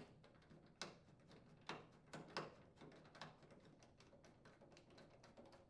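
Faint clicking and ticking of a hand screwdriver driving a screw into the top of a washing machine's front panel, with a few sharper clicks between about one and two and a half seconds in.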